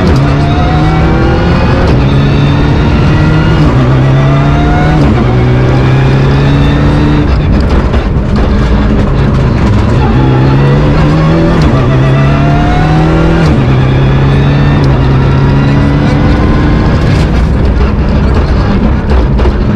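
Rally car engine heard from inside the cabin, pulling hard through the gears. The revs climb and drop back at each of many quick upshifts, with a short lift off the throttle about eight seconds in.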